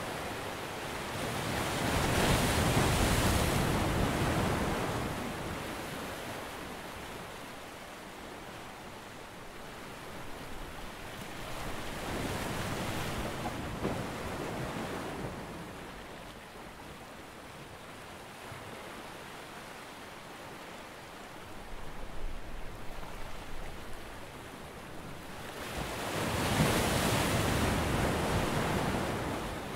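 Sea surf washing in three slow surges about twelve seconds apart, the first and last the loudest, with wind in between.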